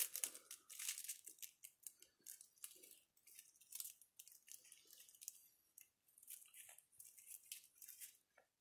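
Faint, irregular crinkling and rustling of grafting tape being handled and knotted around an apple graft union.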